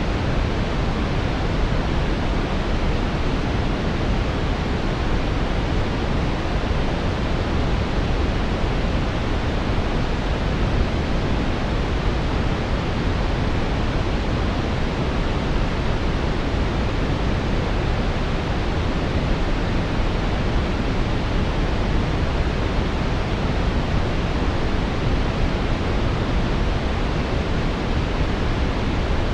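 Steady brown noise: an even, deep rushing hiss with most of its weight low and little at the top, unchanging throughout.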